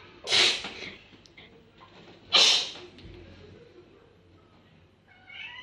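Two loud, breathy sneezes about two seconds apart, each a short hissing burst.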